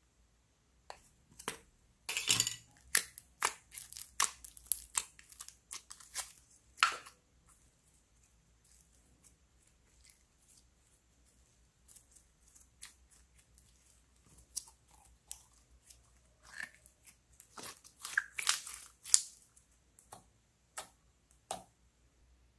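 Thick blue slime stretched and squeezed by hand, giving off sticky clicks and crackling pops: a dense run of sharp crackles for about five seconds, only a few scattered pops after that, then another dense run near the end.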